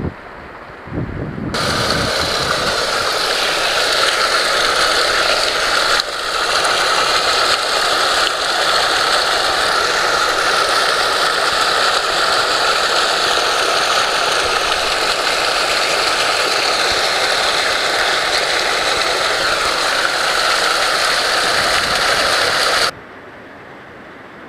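Loud, steady rushing of shallow mountain-stream water close to the microphone. It starts abruptly a moment in and cuts off abruptly near the end.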